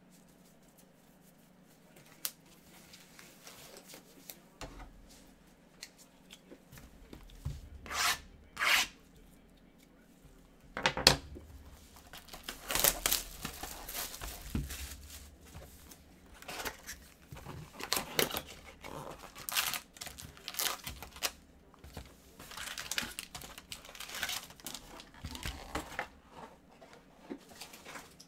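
Plastic shrink-wrap being torn and crumpled off a trading card hobby box, with crinkling as the foil card packs are handled and pulled out. A single sharp knock about eleven seconds in is the loudest sound.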